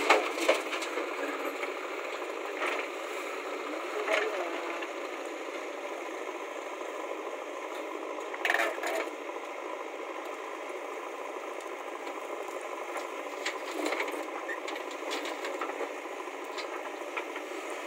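JCB backhoe loader at work, its machinery giving a steady mechanical rattle, with a few louder knocks and clatters as the bucket digs and dumps soil into a tractor trolley.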